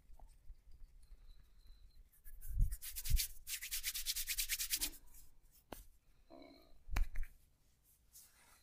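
Hands rubbing briskly in quick back-and-forth strokes for about three seconds, as in a massage, with a few dull thumps, the last about seven seconds in.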